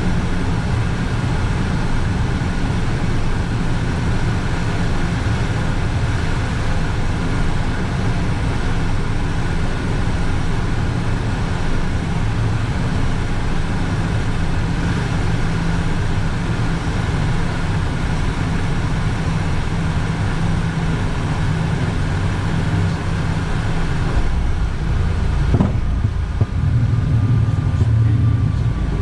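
Cockpit noise of a Cessna Citation business jet on final approach: a steady rush of airflow and turbofan engine drone, heavy in the low end, with a faint steady whine above it. Near the end the sound turns deeper and a little louder, with one brief falling tone.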